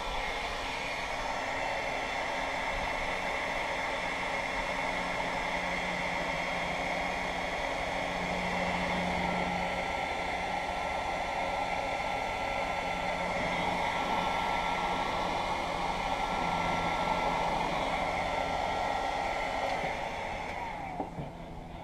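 DeWalt electric heat gun blowing steadily while it shrinks heat-shrink tubing over a wire splice, then switched off and running down near the end.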